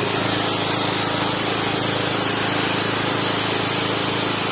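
Hawk 3 kW petrol portable generator's engine running steadily after an electric start, choke pushed off. It gives an even hum with a thin high whine above it.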